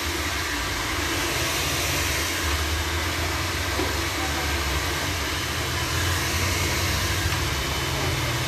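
Handheld hair dryer blowing steadily: an even rush of air with a low hum beneath it.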